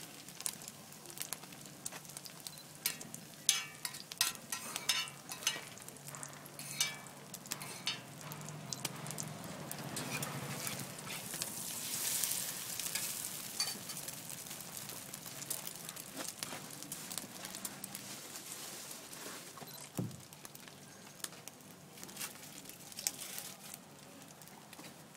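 Egg and bacon sizzling on a large flat griddle, with a metal spatula clicking and scraping against the pan surface, the clicks thickest in the first several seconds. The sizzle swells for a few seconds around the middle, as the omelette is lifted and folded over the bacon.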